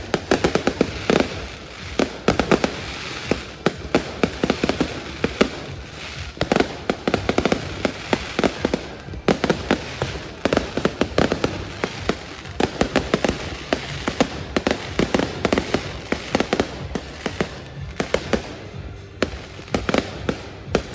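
Fireworks going off: a dense, continuous run of sharp bangs and crackles, many per second.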